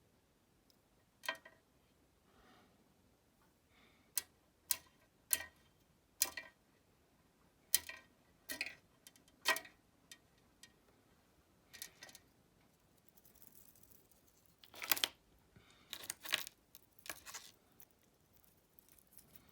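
A series of about a dozen sharp clicks and light taps, irregularly spaced, from small hard objects being handled. A soft rustle comes about two-thirds of the way in, and the loudest cluster of clicks follows just after it.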